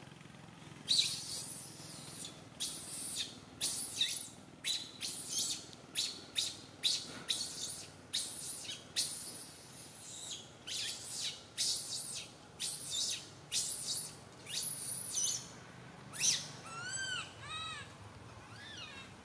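Baby monkey crying: a long run of short, shrill squeals, one or two a second. Near the end come a few rising-and-falling whimpering cries.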